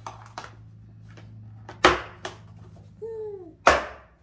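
Hard plastic parts of a baby walker tray clicking and knocking as they are pressed together by hand, with two loud snaps about two seconds apart. A short falling tone comes just before the second snap.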